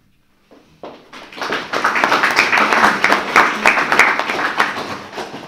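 Audience applauding: it starts about a second in, builds quickly, and dies away near the end.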